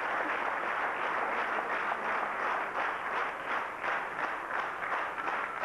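Audience applauding, settling about two seconds in into rhythmic clapping at about three claps a second.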